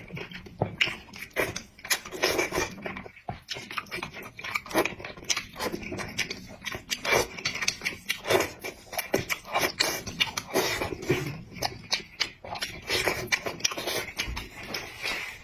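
A person eating close to the microphone, chewing and smacking with many irregular wet clicks and crunches.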